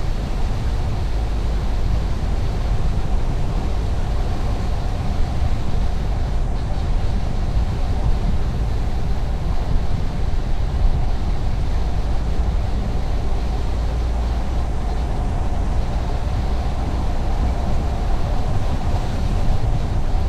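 Steady driving noise of a car on the road: a constant low rumble of tyres and engine that stays even throughout.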